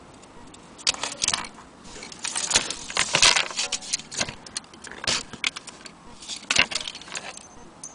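Irregular metallic clinking and rattling, in bursts of quick clicks through most of the clip, from handling an antique German Vienna wall clock and its loose metal parts.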